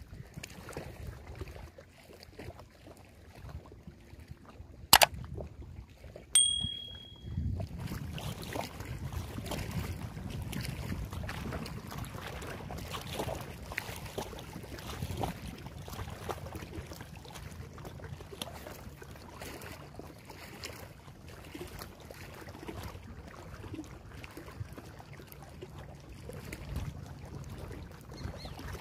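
Small waves lapping and splashing against a rocky bank, a steady wash from about seven seconds in, with wind on the microphone. Near the start comes one sharp click, the loudest sound, and a moment later a brief high ding.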